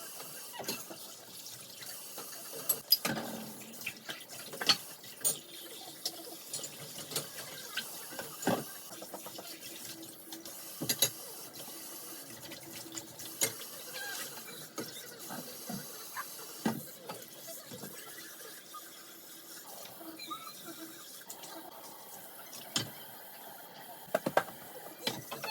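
Water running from a tap into a sink, with scattered sharp clinks and knocks throughout.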